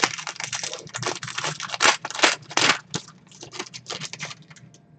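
Trading cards and pack wrappers being handled: a quick run of rustling, crinkling and scraping, loudest for about the first three seconds and then lighter.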